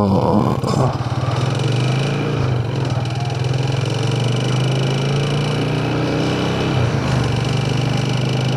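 Motorcycle engine running while being ridden, rising in pitch in the first second as it accelerates, then holding a steady cruising note.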